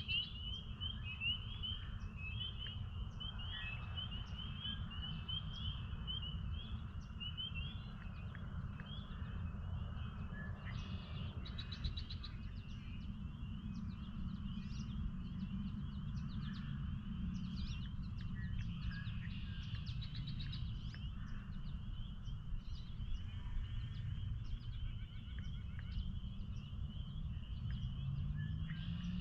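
Chorus of spring peepers: many short high peeps overlapping in a dense, unbroken band, over a steady low rumble.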